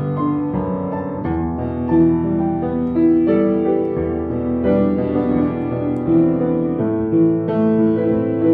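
Solo piano played with both hands: a melody over sustained chords, with new notes struck every half second or so.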